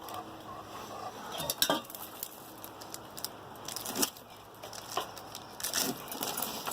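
Handling of cooking gear and food packaging: scattered clinks and knocks with crinkling and rustling, a few sharper clicks standing out about a second and a half in, at four seconds and near the end.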